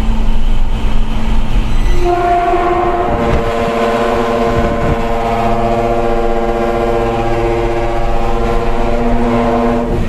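Truck-mounted multi-trumpet air horn (a ship-style 'kapal darat' horn) blowing one long held chord of several notes, starting about two seconds in and cutting off at the end, over the steady running of the dump truck's diesel engine.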